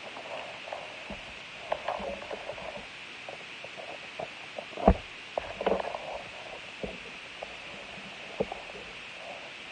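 Plastic shrink-wrap and foil trading-card packs crinkling and rustling as a blaster box is unwrapped and its packs are pulled out, with scattered light taps and one sharp knock about five seconds in.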